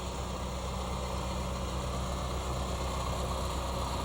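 Engine idling steadily: a low, even hum.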